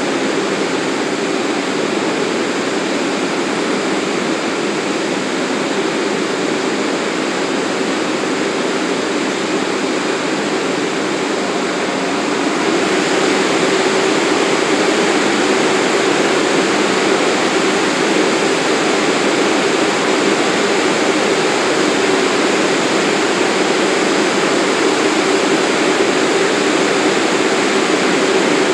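A subway train standing in the station with its equipment running: a steady hiss and hum with a low drone, stepping up a little louder about 13 seconds in.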